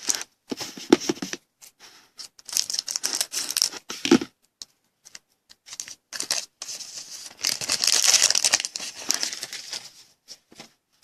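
Crinkling and rustling of trading-card packaging and plastic as cards are handled, in several bursts with small clicks in between.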